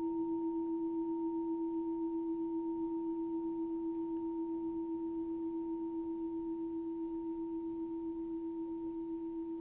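Meditation bell ringing on in a long sustained tone: one low pure note with a fainter higher overtone, slowly fading and gently wavering in loudness.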